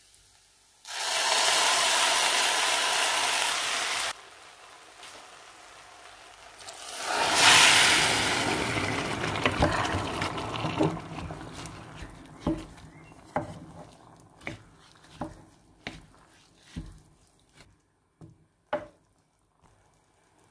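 Liquid poured into the pot as a steady rush for about three seconds. Water then goes into the hot pot of bulgur and vegetables and sizzles loudly, dying away over several seconds while a wooden spoon knocks against the pot in stirring.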